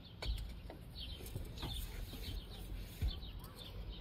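Birds chirping sporadically, short scattered calls over a low steady rumble.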